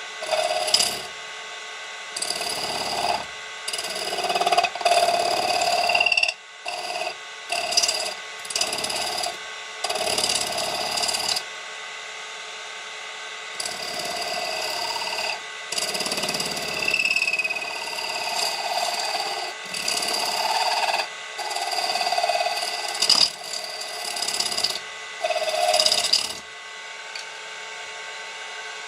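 Brass stock spinning on a lathe driven by a three-phase induction motor, scraped by a hand-held woodturning tool: about a dozen ringing metal-on-metal passes of a second or two each, over the steady running of the motor. The cutting stops a few seconds before the end, leaving the motor running.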